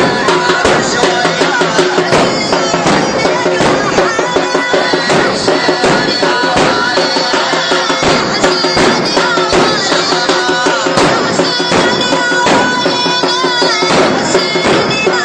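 Procession chant: a voice chanting over a fast, steady drum beat, in the manner of a Muharram latmiyya.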